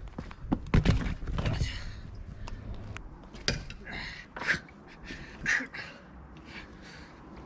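Car tyres dropped onto pavement with heavy thuds about a second in, then a lug wrench clinking and scraping on the wheel nuts in short bursts as overtightened nuts are worked loose, with strained breathing.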